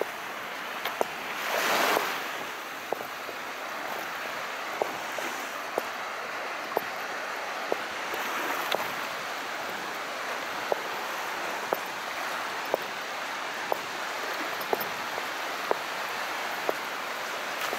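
Calm sea waves washing in, with one louder surge of water about two seconds in, then a steady hiss of surf. A faint short tick sounds about once a second throughout.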